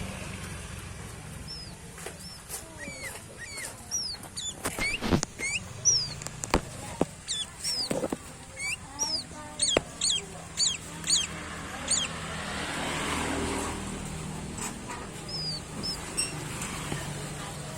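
Sooty-headed bulbul giving runs of short, quick, downward-sliding chirps, thickest in the middle stretch, with a few sharp knocks among them.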